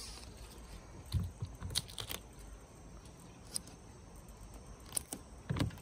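Scattered light clicks and taps, with soft thumps about a second in and near the end, from hands handling a plastic-film-covered solar panel on a car roof.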